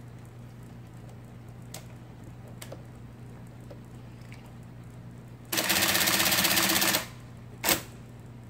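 IBM Selectric ball-element typewriter at work over a steady hum: a couple of faint clicks, then about a second and a half of rapid, even machine clatter, and one sharp strike near the end.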